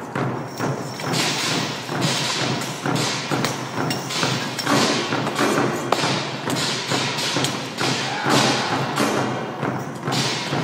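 Korean traditional percussion: drums beaten over and over in a dense, driving rhythm as accompaniment to a sword-and-shield martial performance.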